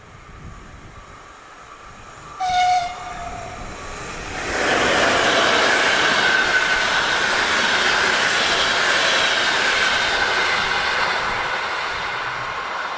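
Škoda class 151 electric locomotive sounds one short horn blast, then the locomotive and its passenger coaches pass close by: a loud rush of wheels on rail that slowly fades.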